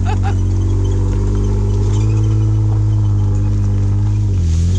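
Jeep Wrangler engine running steadily at low revs on an off-road trail, its pitch dipping briefly near the end and then picking up again.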